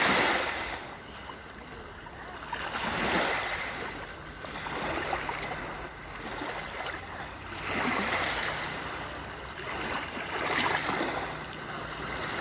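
Small waves washing up onto a sandy beach, each wash swelling and fading, about five times every two to three seconds.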